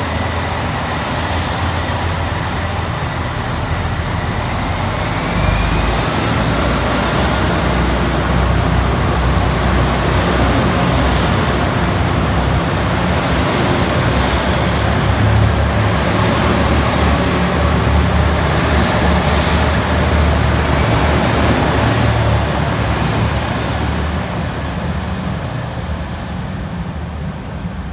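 KiHa 283 series diesel express train pulling out under full power: its diesel engines run loud and hard as the cars go by, with wheel and rail noise. The sound fades as the train draws away near the end.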